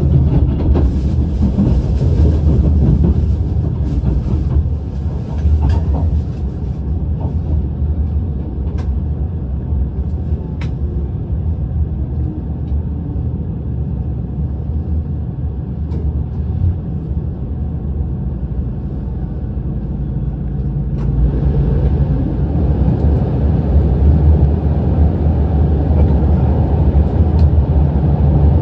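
Running noise heard inside a JR Shikoku 8000 series limited express electric train at speed: a steady low rumble of wheels on rail with a few light clicks. A hiss in the upper range dies away about seven seconds in, and the rumble grows louder again about two-thirds of the way through.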